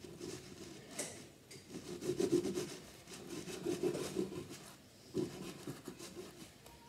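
Bread knife sawing through a bread roll on a chopping board, in runs of back-and-forth strokes with short pauses between them.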